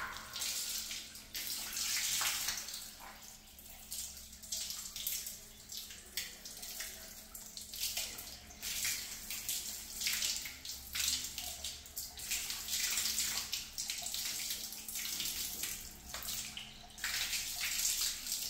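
Water rushing out of an open galvanised-iron pipe stub in a bathroom wall, its tap removed, and splashing onto the tiled floor; the rush rises and falls from moment to moment. The pipe is being flushed after an acid clean, with loosened rust coming out and the flow restored.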